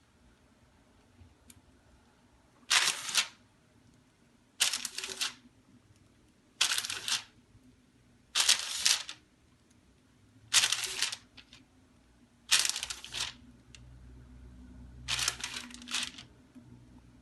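Plastic piping bag crinkling as it is squeezed in short goes, seven rustling bursts about two seconds apart.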